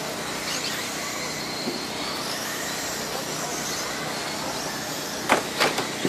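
A pack of radio-controlled dirt oval late model cars running, their motors whining, with the pitch rising and falling as they go round. About five seconds in there are two sharp knocks, the loudest sounds here: cars bumping into one another as they bunch up.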